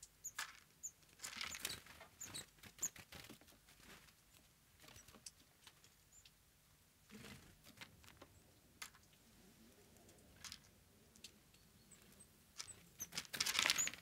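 Small songbirds (tits) scratching, hopping and pecking at peanuts, a faint patter of little clicks and scratches, with a few tiny high calls in the first few seconds. A denser flurry of scratching and rustling comes near the end.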